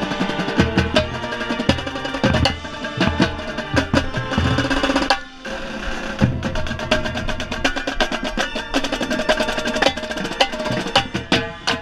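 Marching band playing with the drumline's tenor drums (quads) close up: fast drum strokes over held brass chords, with a brief break a little past halfway.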